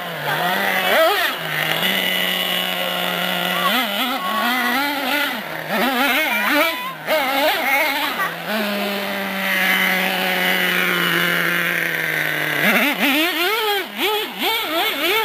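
Small O.S. nitro engine of a Traxxas Revo RC monster truck, high-pitched and buzzing, revving up and down repeatedly as the throttle is worked. About two-thirds of the way through it holds one steady pitch for roughly four seconds, then goes back to rising and falling revs near the end.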